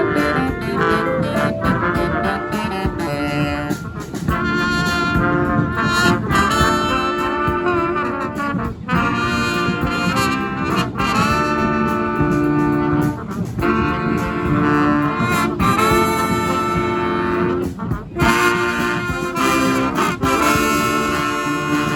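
Street brass band playing a tune live: trombones, trumpets and saxophones in harmony over a steady percussion beat.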